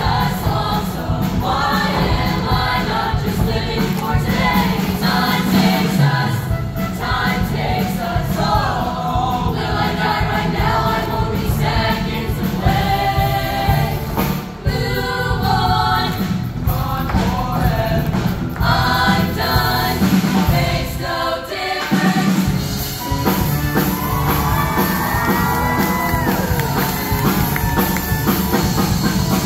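Show choir singing in full ensemble with live band accompaniment. Massed voices carry the song over a steady bass, and a single voice glides above the group near the end.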